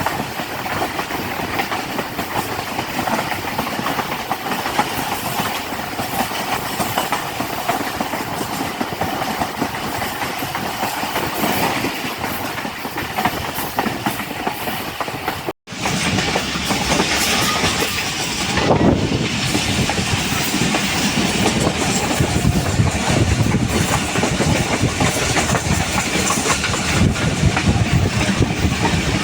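Pakistan Express passenger train running on the line: a steady rumbling noise of the moving coaches on the track. It cuts out for an instant about halfway through, then comes back louder and deeper.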